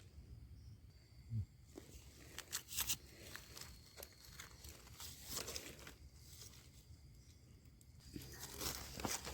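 Crunching and crinkling of dry forest-floor litter being disturbed while foraging for mushrooms, in three short spells, with a brief low thump about a second and a half in.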